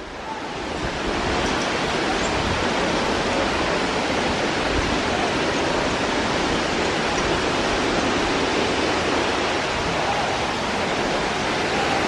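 Steady rushing of Tinago Falls' waterfall, swelling up over the first second and then holding even.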